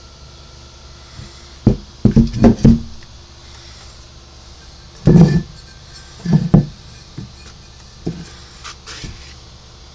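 Handling knocks and thumps from cast-iron Mercruiser exhaust elbows being moved and turned over on a tarp. There is a cluster of knocks about two seconds in, two heavier ones a few seconds later, then lighter taps, all over a faint steady hum.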